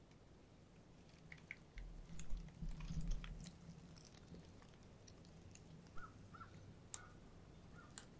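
Faint woodland ambience with a few short bird calls and scattered light clicks and crackles. A low rumble comes in about two seconds in and lasts a little over a second.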